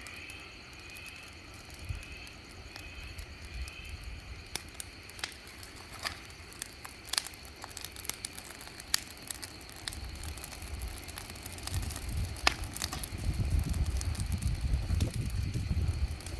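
Wood fire in a fireplace crackling, with irregular sharp pops and snaps. A low rumble builds up over the last few seconds.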